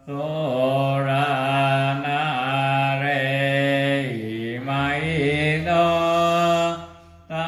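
Buddhist monk chanting in Pali in a low male voice, held near one pitch in long, slightly wavering lines, with a breath pause near the end.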